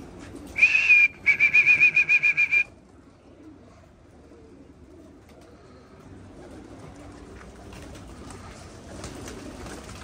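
A loud high-pitched whistle: a short held note, then a fast warbling trill for about a second and a half, after which only a faint background remains.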